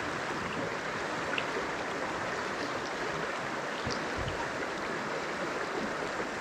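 Small stream running steadily: an even rush of flowing water.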